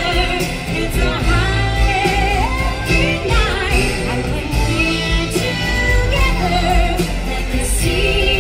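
Show music with singing.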